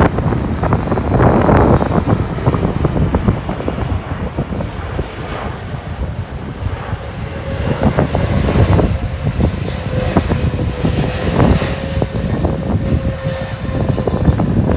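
Boeing 777-300ER's twin GE90-115B turbofans running on final approach: a steady, deep jet rumble. A faint steady whine joins it about halfway through, with wind buffeting the microphone.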